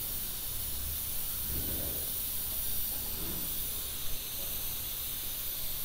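Steady hiss of a gas stove burner running.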